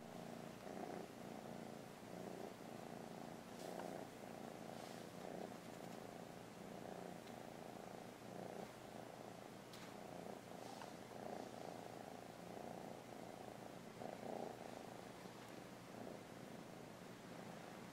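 Kitten purring steadily in slow, even pulses, with a few faint rustles.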